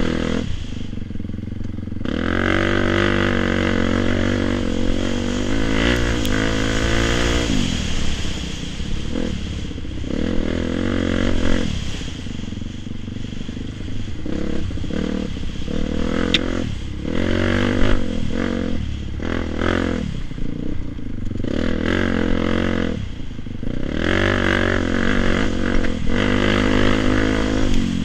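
Dirt bike engine under way, its revs climbing and dropping back again and again as the throttle is worked and the gears change, with brief lulls when the throttle is shut off.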